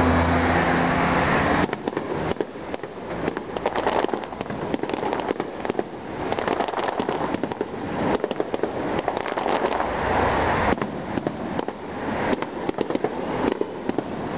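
Aerial fireworks display: shells bursting one after another with a dense, irregular run of bangs and crackles. A low steady hum sits under the first second or so, then stops.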